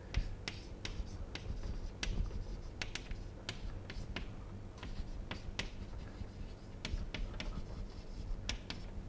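Chalk writing on a chalkboard: an irregular run of sharp taps and short scratches as the letters are formed, over a low steady hum.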